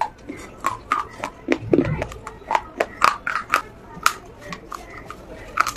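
Pieces of baked clay saucer being bitten and chewed: a run of sharp, irregular crunches and cracks, several a second, with a duller crunch about two seconds in.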